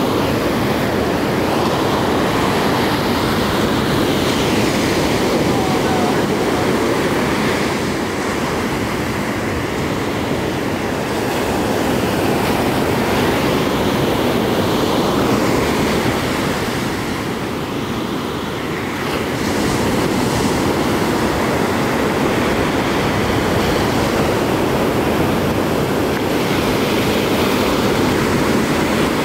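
Ocean surf breaking and washing up a sandy beach, a steady rush that eases briefly about two-thirds of the way through.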